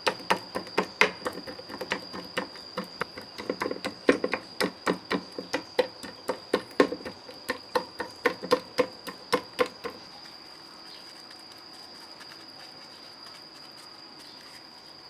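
Knife chopping steadily on a cutting board, about three to four knocks a second, stopping about ten seconds in. A steady high insect trill, like crickets, runs throughout.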